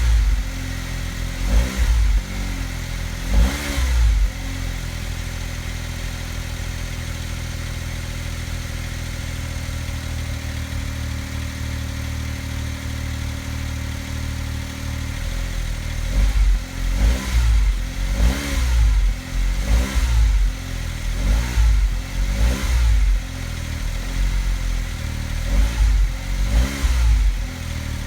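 Honda S660's small three-cylinder turbo engine running through its stock exhaust: a few short throttle blips at the start, steady idle for about ten seconds, then a rapid series of short revs.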